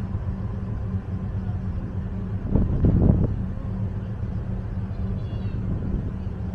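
Steady low drone of a ferry's engines, with a louder rumbling surge about two and a half seconds in.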